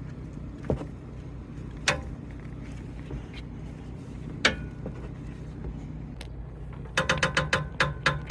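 Worn stabilizer links on a 2007 Toyota bB clacking: a few single knocks, then a rapid run of clacks from about seven seconds in, over the steady hum of the car's engine. The knocking is the sign of the worn links, and it is really noisy.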